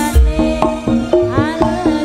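Javanese jaranan music driven by kendang hand drums, whose strokes bend upward in pitch, over a steady repeating pattern of pitched notes and deep bass thuds, mixed heavy on the bass.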